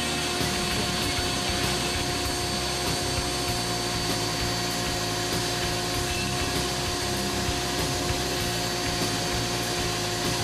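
Foredom flex-shaft rotary tool running at a steady whine as its carbide burr grinds into white cedar, over the steady rush of a dust-collector's suction.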